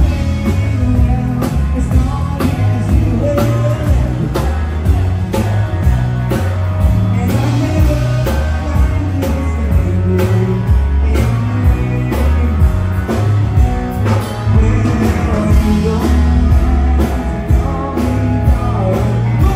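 Live rock-and-roll band playing loudly, with a singer, guitar and drums over a heavy, pulsing bass.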